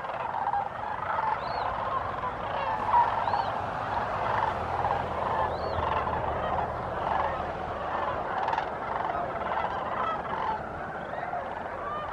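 Flock of sandhill cranes calling: many calls overlap in a continuous chorus, with a few short, high arched notes above it.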